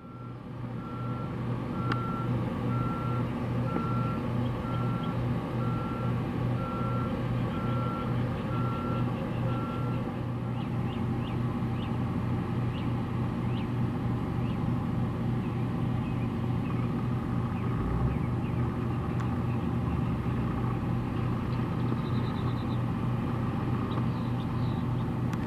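Vehicle reversing alarm beeping about once a second at a single pitch, stopping about ten seconds in, over a steady low engine drone.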